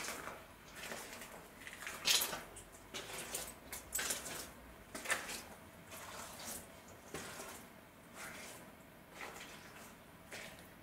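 Footsteps scuffing and crunching on a gritty, debris-strewn cellar floor, in an uneven walking rhythm.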